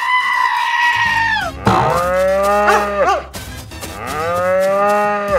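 Cow mooing: three long calls, the first higher-pitched, the later two lower and sagging in pitch as they end.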